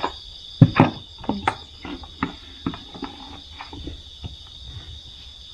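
Plastic food containers, a plastic lid and spoons knocking and clicking on a table as food is served, the loudest knock about half a second in. A steady chorus of crickets chirps behind.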